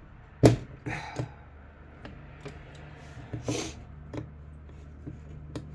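Scattered sharp clicks and knocks of a multi-tool working on the parts of an electric fan being taken apart, the loudest about half a second in, with a short scrape near the middle, over a low steady hum.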